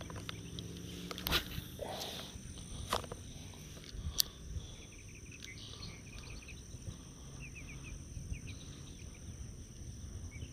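Insects calling: a steady high whine with short runs of quick chirps, and three sharp clicks in the first half.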